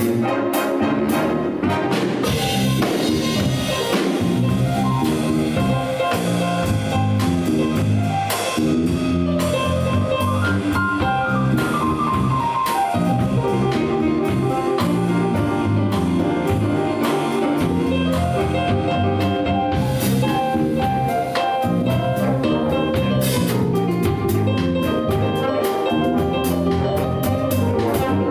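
Big band playing a jazz number live: brass section over a drum kit, with cymbal and drum strokes keeping time.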